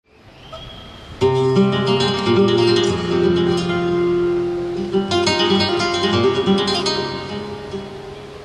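Flamenco-style acoustic guitar music. It fades in faintly, then sharply strummed chords ring out about a second in and again about five seconds in.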